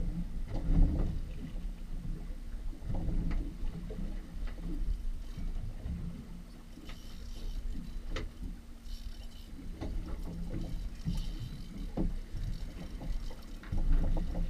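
Water lapping and knocking against the hull of a fishing boat at sea, with an uneven low rumble of wind on the microphone.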